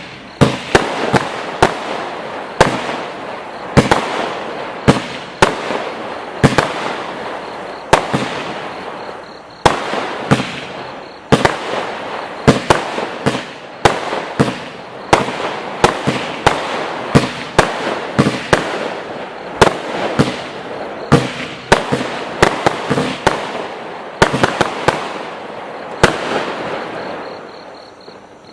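Total FX 'Wonderland' firework going off: a long run of loud bangs, about one a second, with continuous crackling between them that dies down near the end.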